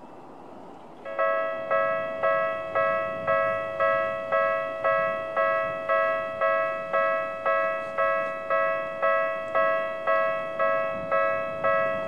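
Electronic level-crossing warning bell with the Tokyu-type tone starting about a second in, then ringing steadily at about two strikes a second: the crossing's warning for an approaching train.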